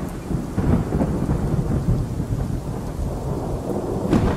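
Thunderstorm: low rolling thunder over steady rain, with a sharper crack near the end.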